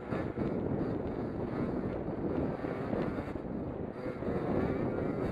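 Race car engines running on the speedway, a steady mass of engine noise with wind buffeting the microphone.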